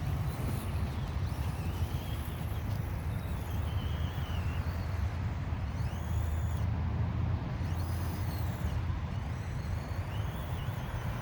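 Faint whine of an Axial SCX24 Deadbolt RC crawler's small electric motor and gears, rising and falling in pitch with the throttle as it climbs a slope, over a steady low rumble.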